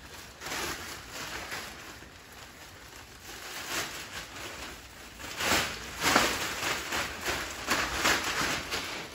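Large blue plastic sheet rustling and crackling as it is unfolded, shaken and flapped. It comes in a run of crackling bursts that grow louder and denser in the second half.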